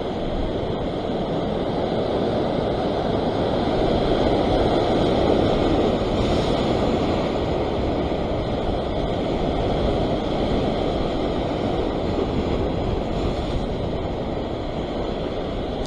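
Ocean surf washing and breaking over a rock ledge, a steady rushing that swells a little about four to six seconds in, with wind buffeting the microphone.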